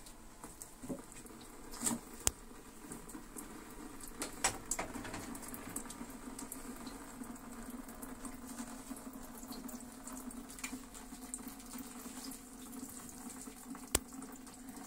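Metal ladle scooping soft sweet whey-cheese curds out of a large pot of hot whey: liquid sloshing and dripping, with a few sharp clinks of the ladle against the pot.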